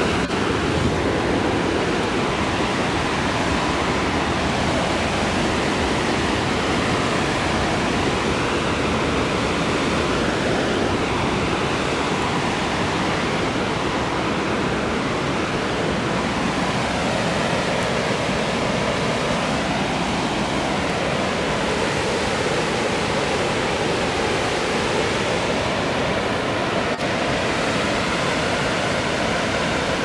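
Lewis Falls pouring over its drop: a steady, unbroken rush of falling water.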